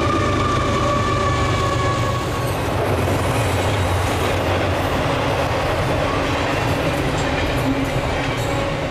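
Intermodal freight train's cars rolling past on the rails, a steady loud rumble and clatter. A high ringing tone fades out about two and a half seconds in.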